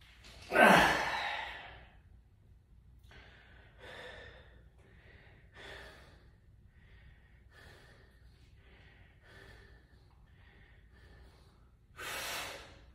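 A man breathing hard under the strain of barbell squat reps. There is a loud forceful exhale about half a second in, shorter quieter breaths every second or so, and another loud exhale near the end.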